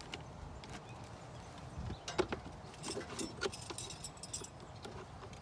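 Scattered clicks and light knocks of hand tools and engine-bay parts, mostly from about two seconds in, as the clamps and bolts on a stock intake airbox are loosened.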